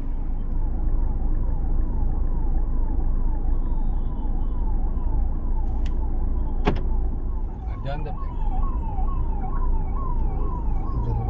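Electronic vehicle siren, a tone that falls in pitch and restarts about three times a second, over the steady rumble of street traffic. A single sharp crack sounds about two-thirds of the way through.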